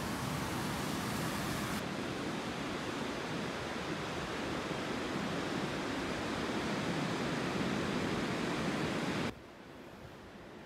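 Steady rush of ocean surf on a beach. It cuts off abruptly near the end to a much quieter outdoor background.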